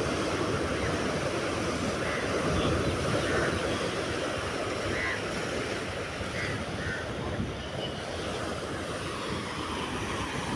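Sea surf breaking and washing over a rocky shoreline, a steady rush of waves.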